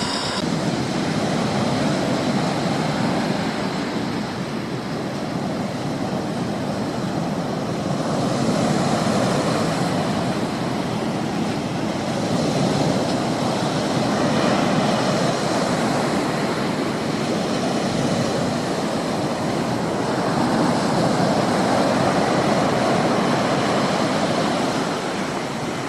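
Steady engine and road noise of a moving vehicle, swelling and easing slowly with no sharp sounds.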